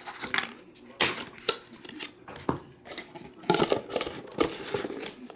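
Cardboard trading-card boxes being handled and opened by hand: a lid lifted off, sharp taps and knocks about one, one and a half and two and a half seconds in, then a run of scraping and rustling.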